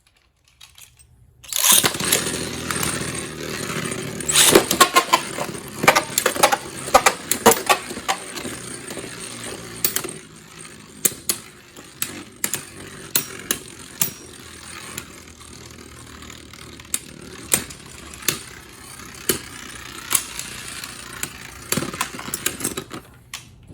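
Beyblade spinning tops launched into a plastic stadium: a sudden whir starts about a second and a half in, then sharp clacks as the tops strike each other and the stadium wall. The clacks come thick at first and grow sparser while the steady spinning whir goes on.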